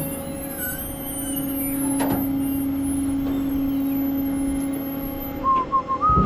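Rollback tow truck running with a steady, even hum. A few short high chirps come near the end.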